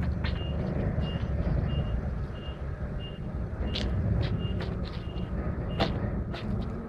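A vehicle's reversing alarm beeping evenly, about one and a half beeps a second, over a low engine rumble, with a couple of sharp knocks.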